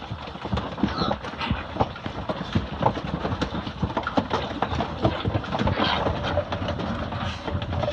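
Wild hogs chewing and tearing at a deer carcass: a dense, irregular run of wet crunches and knocks.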